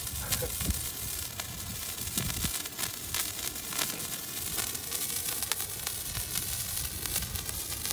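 Handheld spray firework burning with a steady hiss, its sparks crackling with small sharp pops.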